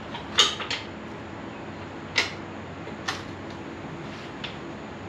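Metal brake parts and hardware on a pickup's front brake knocking together as they are worked into place by hand: about five short, sharp metallic clinks, the loudest about half a second in and another about two seconds in, over a steady low hum.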